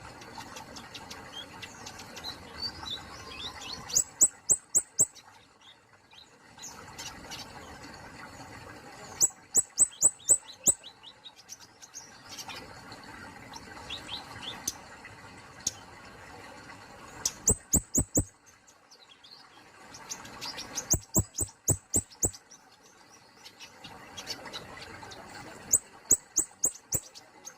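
Kemade polos singing: loud bursts of five to eight sharp, clicking notes in quick succession, repeated every few seconds, with softer high chirps between the bursts.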